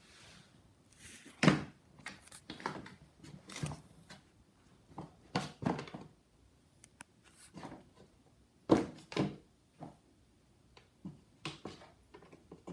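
A kitten playing with a cardboard shoe box: irregular knocks, thumps and short scrapes as the box is batted, pushed and jostled on the floor. The two loudest thumps come about a second and a half in and about nine seconds in.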